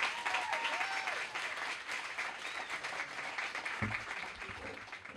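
Audience applauding, fading away near the end.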